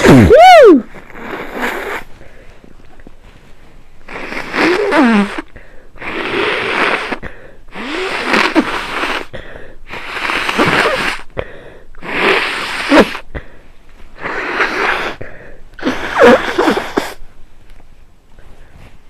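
One loud sneeze from a person with a head cold, then seven forceful, hissing blasts of air through the nose, each about a second long and about two seconds apart.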